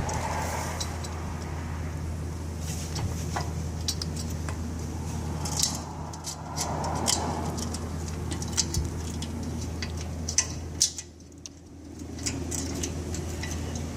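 Light metallic clinks and rattles of a small steel chain being fed through a pallet jack's base pin, scattered irregularly over a steady low hum.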